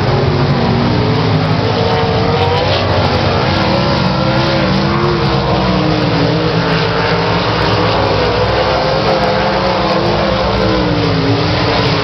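Several dirt-track race car engines running hard together, their pitch rising and falling as they accelerate and lift around the oval.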